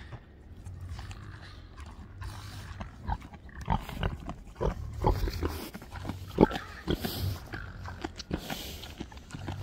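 Pigs grunting close up, a run of short grunts from about three seconds in to near the end.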